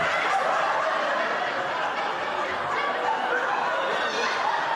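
Audience laughing together, a dense, sustained wave of laughter from many people.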